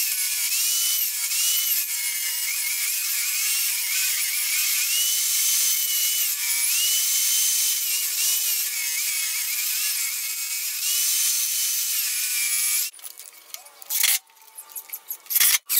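DeWalt table saw running and cutting a wooden piece fed along its fence, taking a shallow 1/8-inch pass off it. Its whine dips in pitch and recovers several times as the blade takes the load. About 13 seconds in it cuts off, and a cordless impact driver gives a couple of short bursts near the end.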